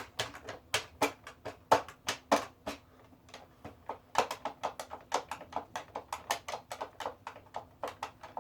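A run of quick, irregular clicks or taps, about three to four a second.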